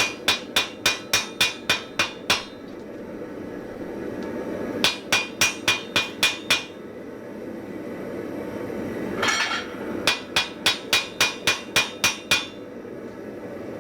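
Hand hammer blows forge-welding an anvil's faceplate onto its body at welding heat, in three quick runs of about four ringing strikes a second.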